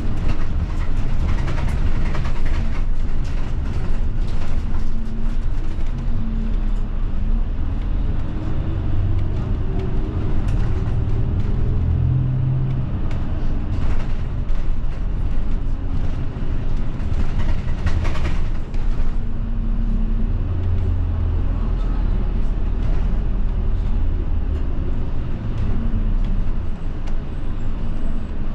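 Route bus heard from inside the cabin: a steady low engine and road rumble whose engine note rises and falls as the bus changes speed, with occasional short rattles and knocks.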